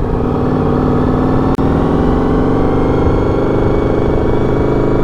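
Honda VFR750 (RC36) motorcycle's V4 engine running under way, its pitch rising slowly as the bike gathers speed, with a momentary dropout in the sound about a second and a half in.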